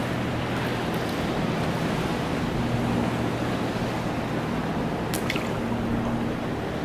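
Pool water sloshing and lapping as waves run across it, with a steady low hum beneath. A few faint ticks come about five seconds in.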